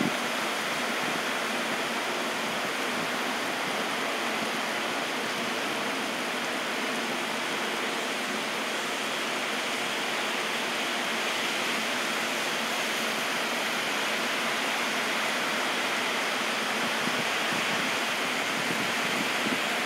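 Heavy rain downpour falling steadily, an even hiss.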